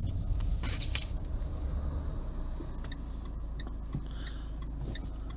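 Steady low rumble of a car driving slowly, heard from inside the cabin, with a few short clicks scattered through.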